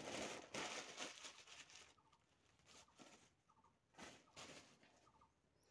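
A plastic bag rustling and crinkling as it is handled, in bursts loudest in the first second and again about four seconds in.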